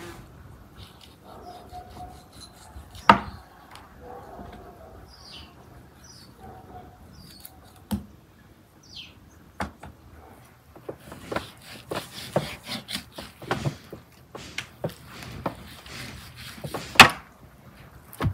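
A knife and hands working a raw whole lamb carcass on a metal tray: scattered sharp knocks and clicks, the loudest about three seconds in and near the end, with a quick run of them in the second half. Birds chirp faintly in the first half.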